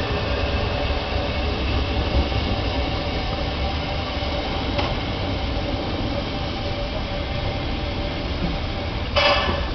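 Running noise of a train heard from aboard as it rolls along: a steady low rumble with rail noise. There is a faint click about five seconds in and a short, high whistle blast near the end.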